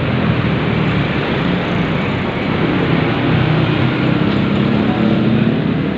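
Steady, loud road noise: vehicle engines running and traffic passing, with a low engine hum that shifts slightly in pitch.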